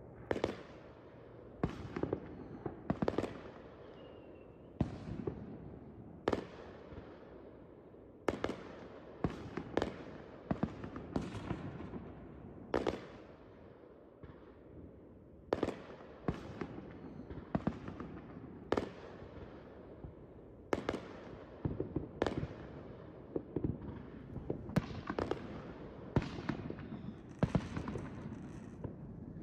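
Consumer aerial fireworks going off over a neighbourhood: a long run of sharp bangs, about one a second and often two or three in quick succession, each trailing off in an echo.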